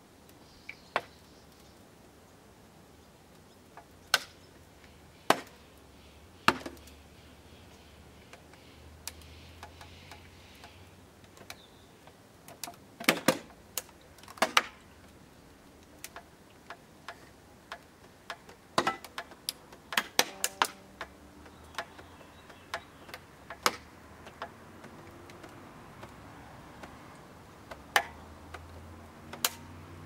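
Microwave oven casing straining under a tyre inner tube swelling with water pressure inside it, giving off sharp, irregular cracks and pops. Some come singly and some in quick clusters as the casing bows outward.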